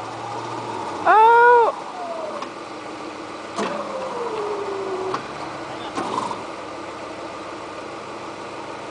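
Electric winch motor whining as it pulls a stuck Jeep Grand Cherokee: one loud whine rises and falls about a second in, then after a click a longer whine winds down, with the engine idling underneath.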